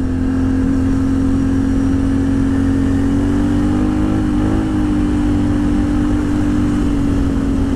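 Can-Am Outlander XMR 1000 ATV's V-twin engine running at a steady cruise, its pitch rising a little about three seconds in and then holding.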